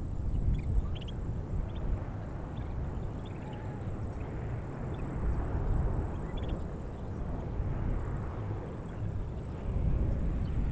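Outdoor ambience: an uneven low rumble with a hiss that swells in the middle, and a few short bird chirps in the first second and again about six seconds in.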